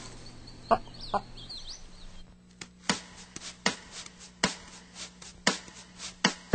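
Chicken clucking: short, separate clucks at an uneven pace, about one or two a second.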